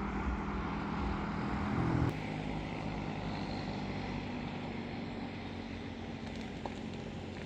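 A steady engine hum over a rushing noise, which changes abruptly about two seconds in to a quieter, steady background noise.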